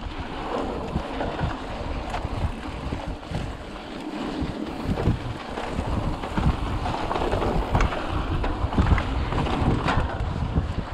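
Mountain bike riding over a dirt trail: wind buffeting the microphone over a steady rumble of tyres on dirt, with a few short knocks and rattles from the bike over bumps near the end.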